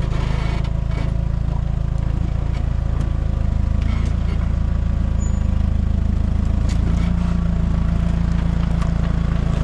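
Four-wheel drive's engine running steadily at low revs while crawling over off-road terrain, with a few faint knocks and clatters.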